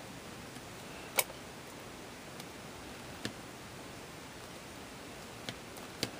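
Low steady hiss with four light, sharp clicks from hands handling craft materials while gluing a ribbon, the loudest about a second in.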